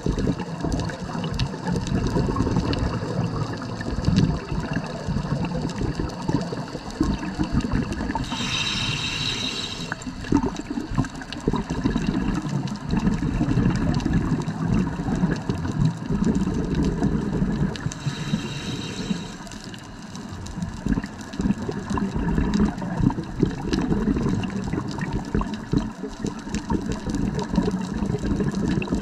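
Scuba diver breathing through a regulator underwater: long bubbling rumbles of exhaled air, broken twice by a short hissing inhale, about eight seconds in and again about eighteen seconds in.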